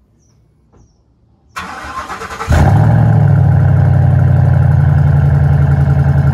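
Ford F-150 pickup's engine cranked by the starter for about a second, then catching about two and a half seconds in and settling into a steady, loud idle.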